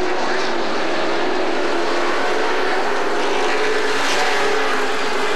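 Pro Truck race trucks' crate V8 engines running at racing speed around a short asphalt oval, a steady engine drone, with one truck passing a little louder about four seconds in.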